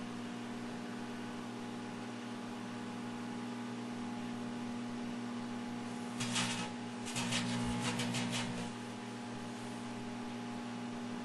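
Microwave oven running with its steady transformer hum, while a CD and a matchbook inside arc and burn. Crackling bursts of sparking come about six seconds in and again for about a second and a half just after.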